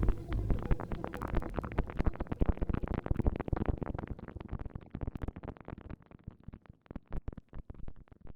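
FM-synthesis noise patch on a VCV Rack software modular synthesizer: a dense stream of crackling clicks over a low rumble that grows sparser and fades out toward the end.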